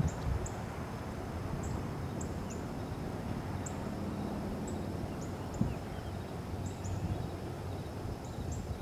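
Outdoor ambience: a steady low rumble with faint, short, high chirps repeating every second or so through it, and one soft thump about halfway through.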